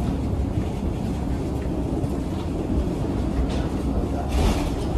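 Steady low rumble inside a passenger vehicle, with a short burst of hiss about four seconds in.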